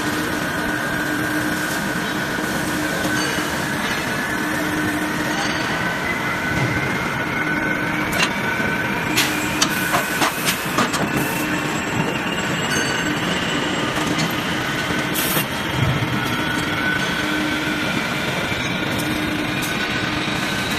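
Steady din of machinery on an automated forging line, with a low hum and a thin whine that rises slowly in pitch throughout. A quick cluster of sharp knocks comes in the middle, and a single knock follows a few seconds later.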